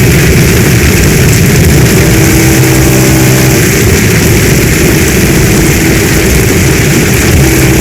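Heavy storm rain: a loud, steady, dense hiss with a deep rumble underneath. A faint low hum comes in about two seconds in and again near the end.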